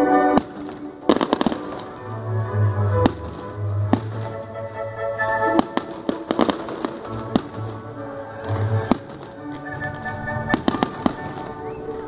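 Fireworks exploding with sharp bangs every second or so, some coming in quick crackling clusters. Music with sustained notes and a low bass line plays underneath.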